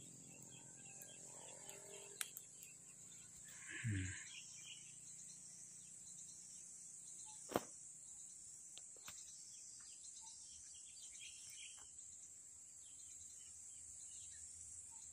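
Faint outdoor ambience: insects, crickets among them, keep up a steady high-pitched trill, with scattered small chirps. There is a brief low sound about four seconds in and a sharp click a little past halfway.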